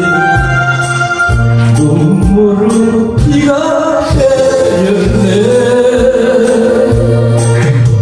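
Korean trot song: a man singing into a handheld microphone over a backing track with a steady beat and bass line.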